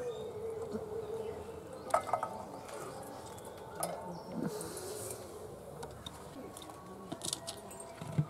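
Green peas being shelled by hand into a small steel bowl: a few scattered sharp clinks and taps as pods split and peas drop against the metal, with bangles lightly clinking.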